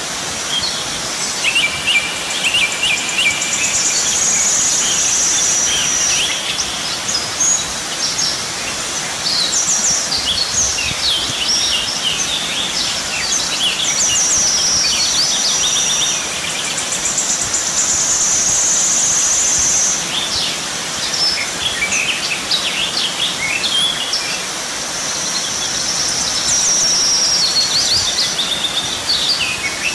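Several birds chirping and calling over a steady hiss of background noise. Long high trills come in three stretches: about four seconds in, again from about fourteen to twenty seconds, and again near the end.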